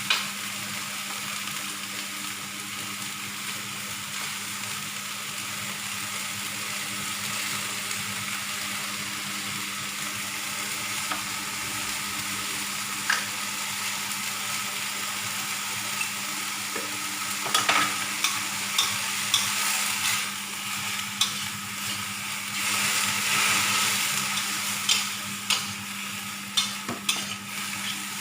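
Food sizzling steadily in a frying pan, with a run of sharp clicks and scrapes of a utensil against the pan from about halfway through.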